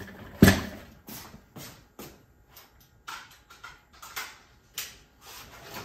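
Handling noise while looking for a cassette tape: one sharp knock about half a second in, then a dozen or so lighter, irregular clicks and taps of hard objects being picked up and moved.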